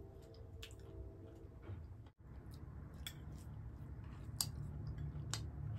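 Close-up eating sounds: chewing and mouth noises, with fingers squishing rice and pork curry on the plate and a few sharp clicks. A faint steady hum fades out within the first two seconds.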